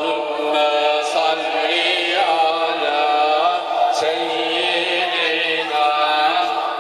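A man chanting a Turkish religious hymn in a long, drawn-out, wavering melody, with a steady low tone underneath.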